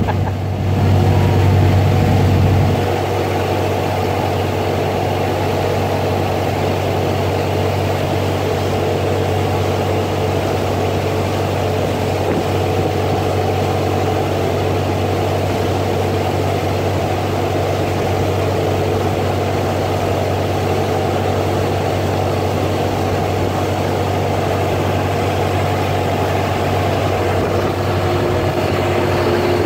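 A boat's engine running steadily under way, a constant low drone with the rushing wash of the wake over it; it is a little louder for the first couple of seconds, then holds even.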